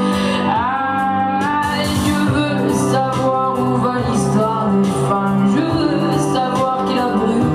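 A woman singing live into a handheld microphone over instrumental accompaniment, her voice sliding up in pitch about half a second in and holding the note.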